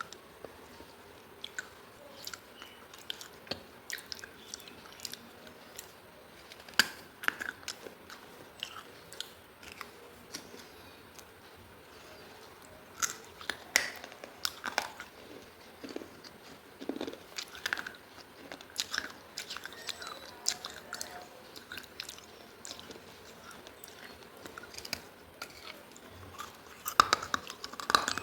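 Close-up chewing and crunching of baked clay from a clay diya lamp: irregular crisp bites and gritty crunches, with a louder, denser run of crunching near the end.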